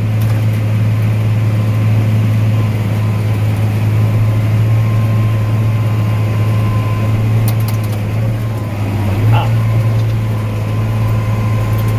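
John Deere 8300 tractor engine running at a steady drone, heard from the operator's seat, with a faint steady whine above it.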